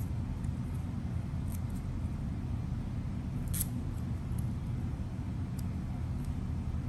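Steady low background rumble, like room hum or distant traffic, with a few faint clicks, the clearest about three and a half seconds in.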